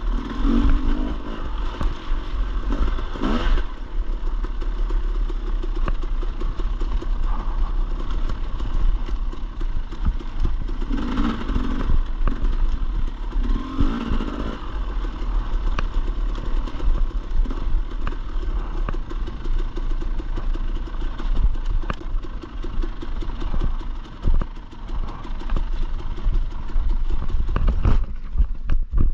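Dirt bike being ridden on a rough trail: the engine runs under a constant low rumble and revs up in short bursts several times, with frequent rattling and knocking from the bike over rough ground.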